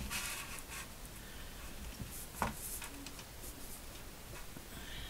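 Faint handling of a sheet of card on a paper trimmer as it is slid into place under the raised cutting arm, with one light click about two and a half seconds in.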